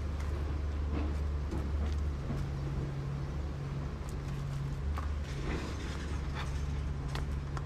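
Steady low engine drone of a motor running nearby, without speech; its low bands shift slightly about two seconds in.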